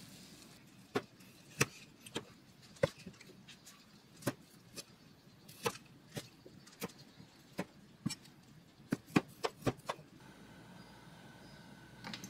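Chinese cleaver chopping cooked chicken breast on a wooden cutting board: a run of sharp, irregular knocks, roughly two a second, that stops about ten seconds in.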